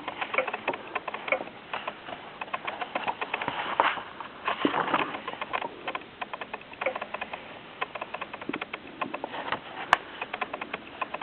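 Pages of a softcover book being turned and handled: irregular paper rustling and crackling, with one sharp click near the end.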